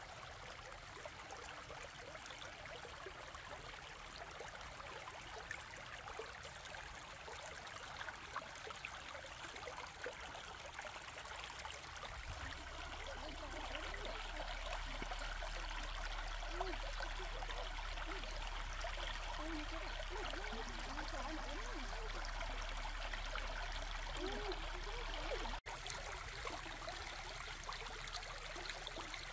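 Shallow stream running over stones: a steady rush of water with small gurgles. It grows louder about halfway through.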